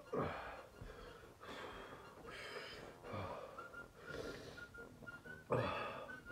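A man breathing hard and raggedly in pain, with about six loud gasping, wheezing breaths in and out. This is the burn from eating Carolina reaper chilli gummy bears.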